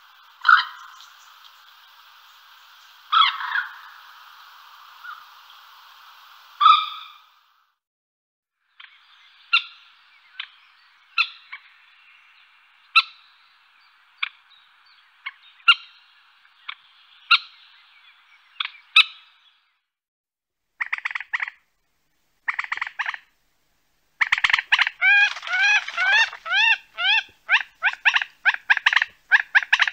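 Common moorhen calling: loud, sharp single calls every one to three seconds. Near the end they turn into a fast run of rapid clucking notes.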